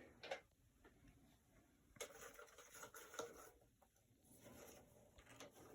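Very faint rustling and a few light clicks in a quiet small room, like small objects being handled.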